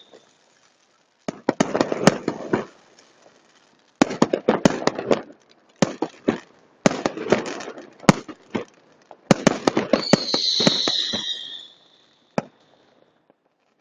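Fireworks salute going off in repeated volleys of sharp bangs and crackling, with short pauses between the volleys. About ten seconds in, a high, slightly falling whistle sounds for a second or so over the bangs.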